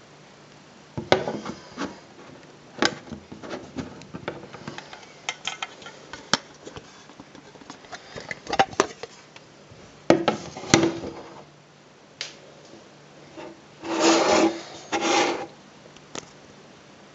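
Handling noise from a vintage Gucci gold-tone metal cigarette case being turned over and opened on a wooden table: scattered clicks, taps and rubbing scrapes. Two longer scrapes come near the end.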